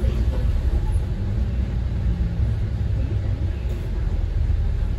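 Bus in motion heard from inside the cabin: a steady low rumble of engine and road noise.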